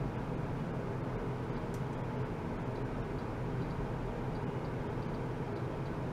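Steady low rumbling background noise, with faint light ticks now and then.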